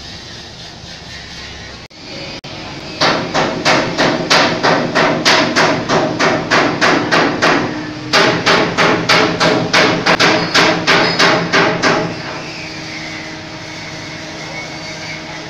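Rapid, evenly spaced hard knocks, about three a second, in two runs broken briefly in the middle, over a steady motor hum.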